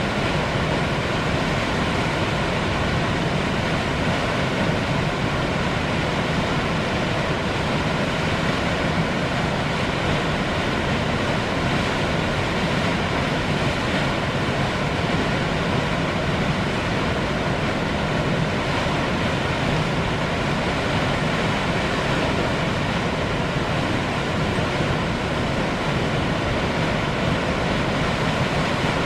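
Upper McCloud Falls on the McCloud River: the steady, unbroken rush of a waterfall.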